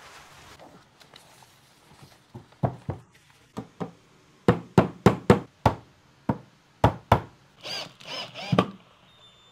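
Steel hammer knocking on the wooden parts of a flat-pack shelf: about a dozen sharp knocks, some in quick pairs and triples. Near the end a cordless drill runs in three short bursts, driving a screw through a metal corner bracket.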